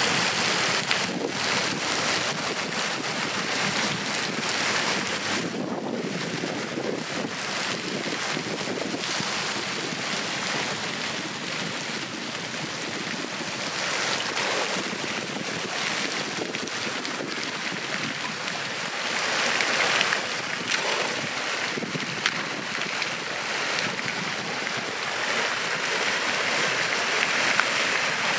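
Creek water rushing steadily over a pool, a continuous noisy wash that swells a little about twenty seconds in.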